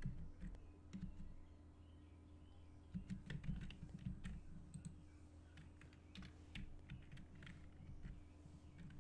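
Faint, irregular clicking of computer keyboard keys and a mouse, over a low steady hum.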